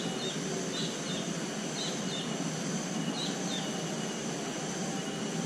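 Steady rushing of river water, with a bird repeating short high chirps in pairs about every second and a half.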